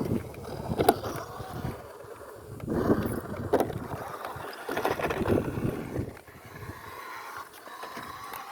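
Toy-grade RC car's small electric motor whining in uneven surges as its wheels churn and scrape through dirt, with scattered knocks.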